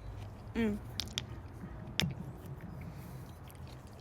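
Close-up mouth sounds of chewing soft food, with a short hummed 'mm' about half a second in and a few sharp clicks around one and two seconds in.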